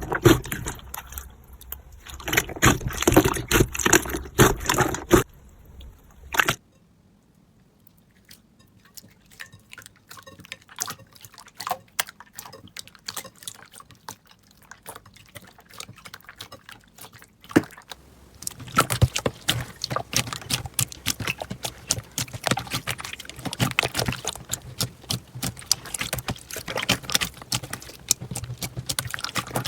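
Slime being handled, making a run of sticky crackling clicks and pops. The clicks are dense for about the first five seconds, thin out to scattered quieter pops for the next ten or so, then turn dense again for the rest.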